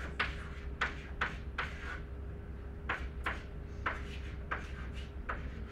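A series of short, light taps or clicks, irregular at about two a second, over a faint steady electrical hum.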